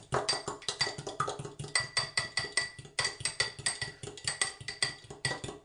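A metal fork beating an egg-and-milk mixture in a drinking glass, its tines clinking rapidly against the glass, about eight strokes a second with a light ringing of the glass. The beating pauses briefly about three seconds in and stops just before the end.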